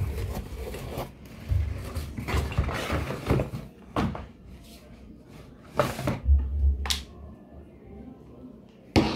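Unboxing handling noise: cardboard box flaps opening, packaging rustling, and the plastic body and cord of a corded electric drill knocking as it is lifted out and turned in the hands. Several sharp knocks, the loudest near the end.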